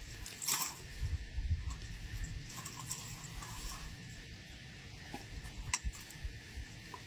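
A weighted cast net being gathered up by hand: light rustling of the mesh and two sharp clicks, one about half a second in and one near the end, over a low, uneven rumble.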